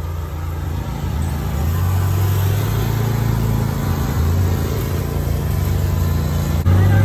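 Zero-turn riding lawn mower's engine running steadily as it drives across the grass, getting louder about a second and a half in. A sharp click and a jump in level come just before the end.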